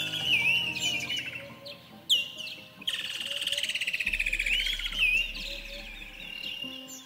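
Birds calling in whistled, swooping notes, with a fast buzzing trill lasting about two seconds from roughly three seconds in and a short sharp click just before it, over soft sustained ambient music tones.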